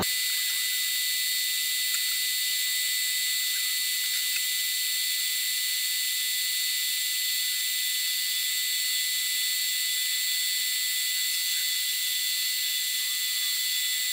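Metal lathe taking a power-fed facing cut across an aluminium block. It makes a steady high hiss with a thin whistling whine and no low rumble.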